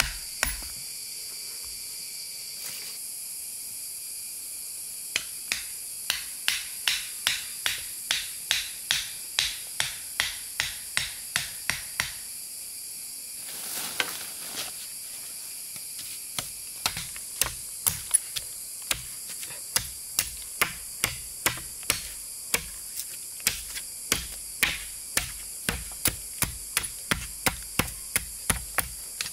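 Repeated sharp blows, about two a second, in two long runs with a pause of a few seconds between them, over a steady high-pitched insect chorus.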